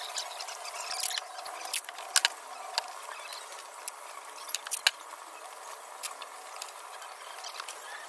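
Hands handling a thermocol (polystyrene foam) model plane: scattered squeaks and rustles of the foam, with a few sharp clicks about two seconds in and near the five-second mark.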